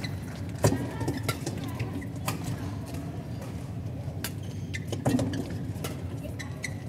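Badminton rackets striking a shuttlecock in a fast doubles rally, with a sharp hit about every second or two. Faint shoe squeaks on the court sit over a steady hall hum.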